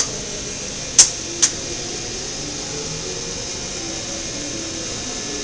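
Cincinnati-Milacron Arrow 750 CNC vertical machining center moving its axes: a quiet, steady hum of the table traversing, with a faint whine that shifts in pitch. Three sharp clicks come in the first second and a half.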